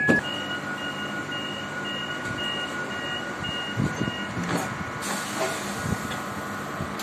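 Door warning beeper of a stopped Cercanías commuter train, sounding short high beeps about two a second for some four seconds. A knock comes right at the start, and the train's equipment keeps up a steady whine and hum throughout.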